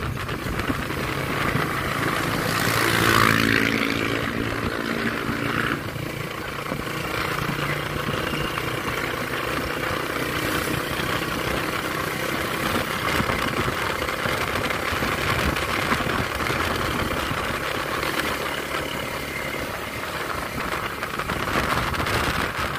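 Road noise heard from inside a moving vehicle: the engine runs and the tyres and wind hiss steadily. About two to four seconds in, a louder engine hum swells and then fades.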